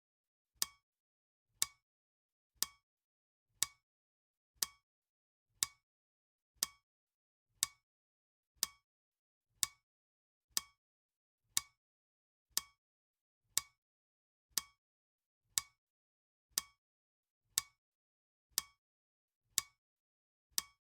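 Clock ticking, one sharp tick each second, evenly spaced, with silence between the ticks.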